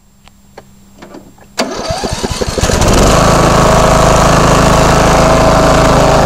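York Affinity 3S central air-conditioner's outdoor condensing unit starting up. A click comes about a second and a half in, then the compressor and condenser fan come up to a steady, loud run with a low hum.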